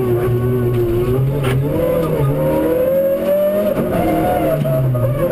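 Rally car's engine heard from inside the cabin, revs climbing steadily for about four seconds and then falling near the end. A single sharp click sounds about one and a half seconds in.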